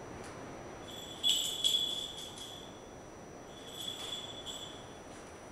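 Small falconry bells on a bird of prey jingling twice: a longer rattle of ringing about a second in, and a shorter one near four seconds, as the bird shifts or flaps on the glove.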